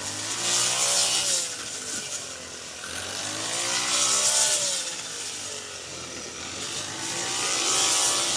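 Rice combine harvester's engine running, its pitch and loudness rising and falling in swells about every three to four seconds, with a loud hiss at each swell.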